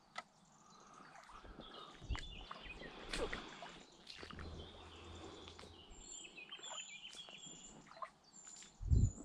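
Birds singing, with a short high chirp repeated about twice a second in the second half, over scattered clicks and rustles of handling. A loud low thump near the end.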